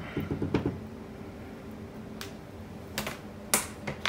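A silicone spatula stirring cream in a saucepan, a quick run of soft scrapes in the first half-second. Then a few sharp clicks and knocks, the loudest about three and a half seconds in, as the spatula and cutting board are set down, over a faint steady hum.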